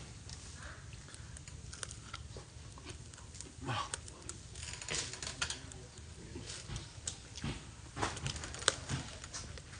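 Irregular light clicks and taps of small objects being handled on a table, with one sharper click near the end, over a steady low hum.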